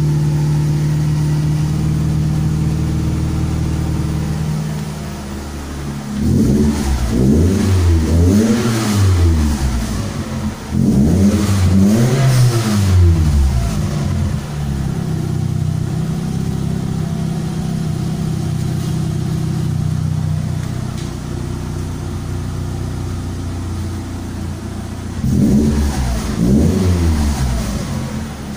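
Toyota Celica GT's exhaust from a wide tailpipe tip, idling steadily, then revved in rising and falling bursts. There are two runs of several revs in the middle, a settle back to idle, and two quick revs near the end.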